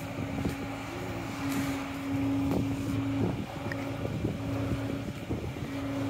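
A steady low mechanical hum over street noise, dropping out briefly about three seconds in and again near the end.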